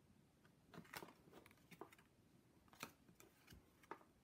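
Faint handling of tarot cards being flipped through by hand: a handful of soft clicks and slides as cards are moved one by one through the deck.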